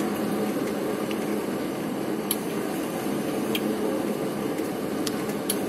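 Pchelotekhnika four-frame radial honey extractor running its automatic cycle, the 12-volt electric drive spinning the rotor steadily at 200 rpm. It is a steady, even whirring with a few faint ticks.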